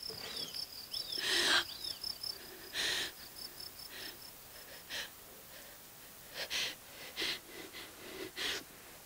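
A woman's heavy, gasping breaths and sobs, about half a dozen sharp intakes spread across a few seconds, the loudest about a second and a half in. Behind them a cricket chirps in quick regular pulses through the first half.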